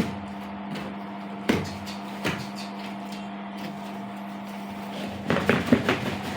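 Cardboard helmet box being handled and opened by hand: a sharp knock about a second and a half in, a softer one shortly after, then a flurry of tapping and scraping near the end, over a steady low hum.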